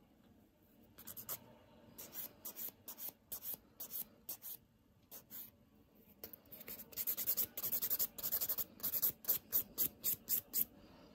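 Hand nail file rasping over acrylic nails in short back-and-forth strokes, starting about a second in and coming quicker and denser in the second half.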